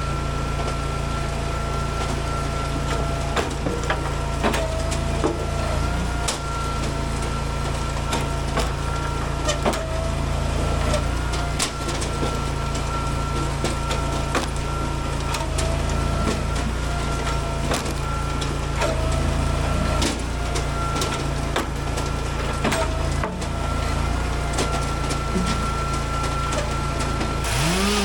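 Engine-driven hydraulic log splitter running steadily, its pitch dipping briefly now and then under load. Frequent knocks and clacks of split firewood pieces tumble and strike each other.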